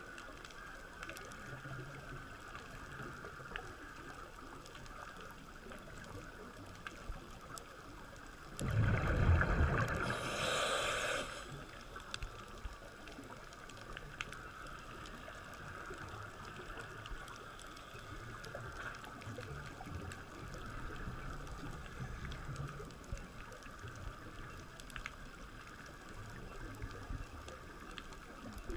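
Underwater ambience on a scuba dive: a low, steady watery hiss with faint scattered clicks. About nine seconds in comes a loud gurgling rush of exhaled regulator bubbles lasting two to three seconds, and another starts at the very end.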